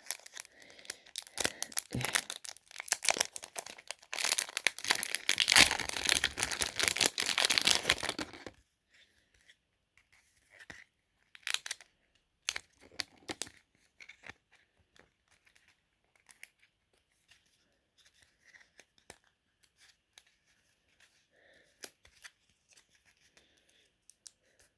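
Packaging of a trading-card structure deck being torn and crinkled open, a dense crackling that is loudest around the middle and stops suddenly a little past a third of the way through. After that, only scattered faint clicks and taps of the cards and packaging being handled.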